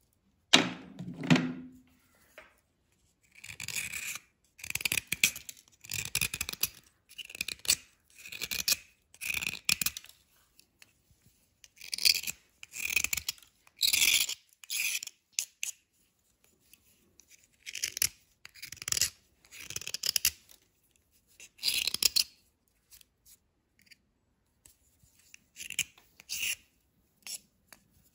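A small knife blade scraping a crumbly white chalky bar, short rasping strokes coming in bursts with pauses of a second or two between them.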